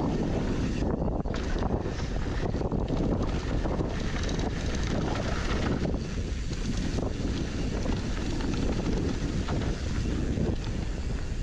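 Wind rushing over a mountain bike's point-of-view camera microphone during a downhill run, over the steady noise of knobby tyres rolling on a dry dirt trail.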